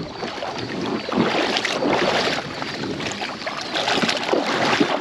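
Water splashing and sloshing around a kayak moving down a river, in uneven surges.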